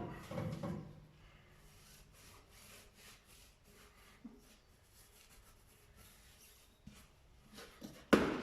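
Quiet rubbing and handling while tyre paste is worked onto a tyre and wheel at a tyre machine, with one sharp knock near the end. Background music fades out in the first second.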